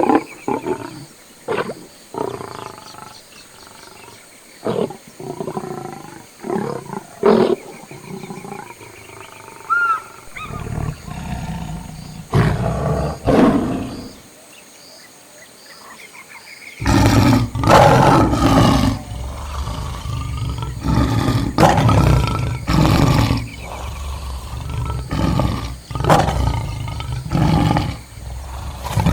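Lions growling and roaring in a string of short calls, sparse at first and then coming thick and loud through the second half.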